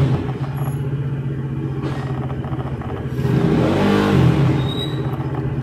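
Steady low engine hum of a motor vehicle running nearby, with a swell that rises and falls in pitch about three to four seconds in.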